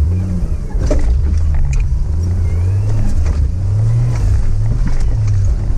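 Turbocharged TB42 straight-six engine of a GQ Nissan Patrol comp truck running under load, heard from inside the cab. Its note climbs about two-thirds of the way through, with a few short knocks and rattles from the truck.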